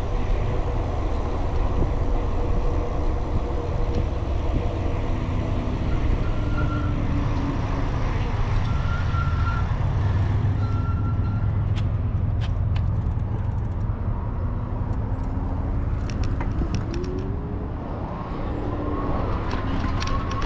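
Wind rumbling over the microphone of a camera on a moving e-bike, mixed with tyre noise on pavement. In the second half there are a few light clicks, and near the end some faint rising tones.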